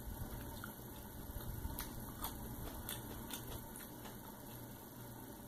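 A person chewing food, with a few sharp wet mouth clicks in the middle, over a faint steady low hum.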